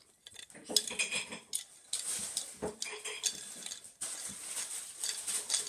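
Small plastic Mega Bloks pieces being handled, clicking and clattering against each other in quick irregular knocks.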